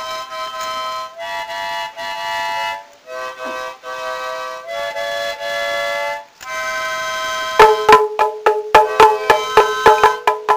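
Instrumental background music: held chords in short phrases, then about three quarters of the way in a quick run of sharp struck notes over one held note.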